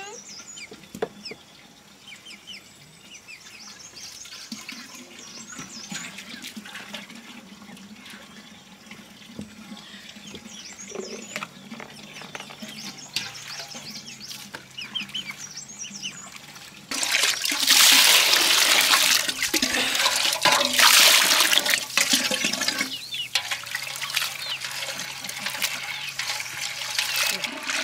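Water pouring and splashing, loud for about six seconds past the middle, then quieter, over faint bird chirps.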